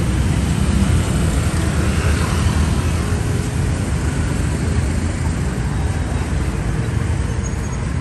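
Street traffic noise: a steady low rumble of engines and passing vehicles.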